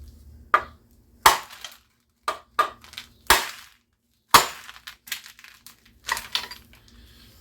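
A series of about seven sharp metal knocks and clinks at irregular gaps, some ringing briefly, from hand tools working at a Tecumseh small engine's flywheel.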